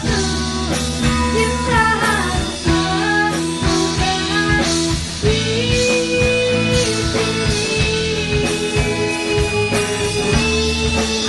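A woman singing a slow melody into a microphone over instrumental accompaniment with guitar and drums, holding long notes in the second half.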